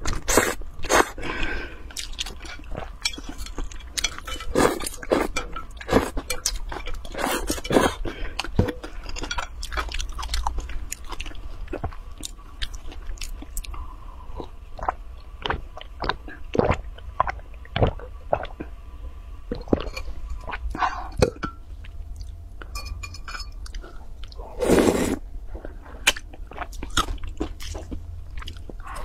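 Close-miked eating sounds: noodles slurped from a bowl at first, then wet chewing, crunchy bites and smacking, with many sharp clicks and one louder burst near the end.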